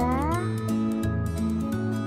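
Background music: sustained notes over a bass line that changes note about every half second, with a short rising glide right at the start.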